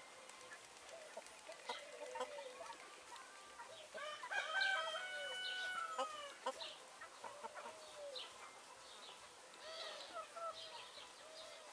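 A flock of light Brahma chickens clucking, with one long crow from a rooster about four seconds in, the loudest call.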